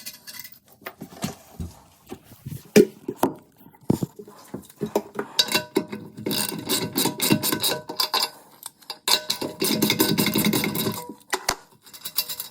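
Metal hand tools and hardware clinking and rattling: scattered single clicks, then two longer stretches of quick, dense clicking.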